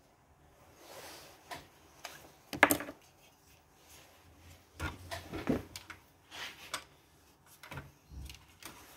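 Handling sounds as a graphics card is fitted into an open-frame mining rig: scattered knocks, clicks and scrapes of hard plastic and metal, with a sharp clack about two and a half seconds in and a cluster of knocks and scrapes around five seconds in.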